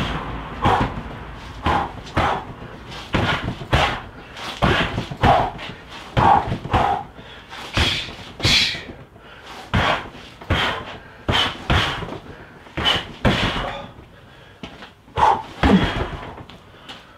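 Gloved punches and knee strikes landing on a freestanding torso-shaped striking dummy: a long run of dull thuds, about one to two a second, with a short pause about three quarters of the way through.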